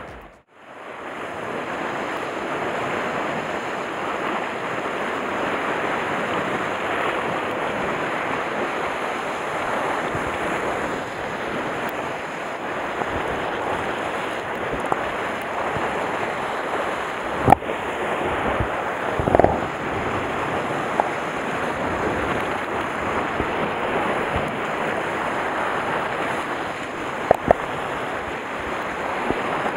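Steady wash of sea surf breaking on a rocky shore, with wind on the microphone. A few short knocks stand out, the loudest a little past halfway, and two more near the end.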